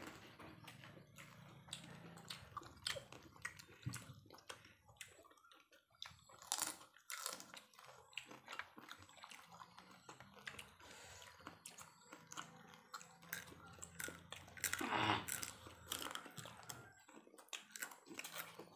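Close-up eating sounds: chewing and biting into chunks of stewed carrot, corn and shellfish, with irregular crunches and mouth clicks and one louder spell about fifteen seconds in.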